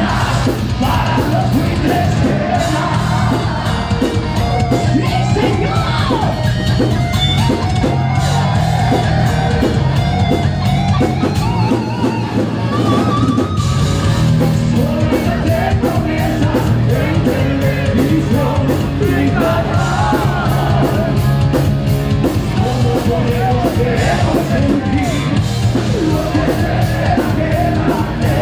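Heavy metal band playing live: distorted electric guitars, bass and drum kit under a male singer's loud, yelled vocals.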